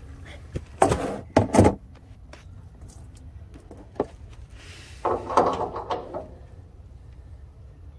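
Hand tools clanking and scraping on the brass drain fitting under a truck's diesel tank: two loud scrapes about a second in, a sharp click near the middle, and another rough scraping noise about five seconds in.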